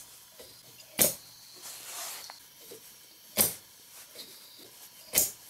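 Homemade 3D-printed gas engine firing as its flywheel is turned by hand: three sharp pops, about a second in, near the middle and near the end. Each firing pulls the flywheel from the hand.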